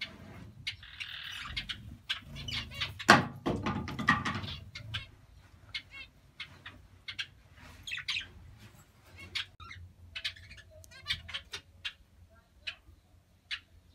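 Budgerigars chirping and chattering in a cage, with many short high calls and quick warbling runs. A loud knock with some rustling comes about three seconds in.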